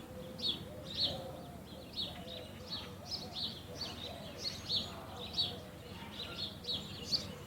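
Small birds chirping: short high chirps repeating about twice a second.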